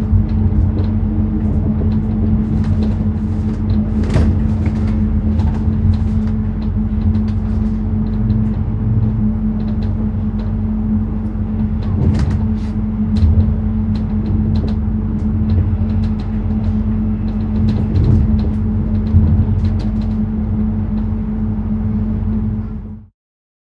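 Interior of a moving electric train: a steady low rumble with a constant hum, dotted with frequent small clicks and rattles. It fades out to silence near the end.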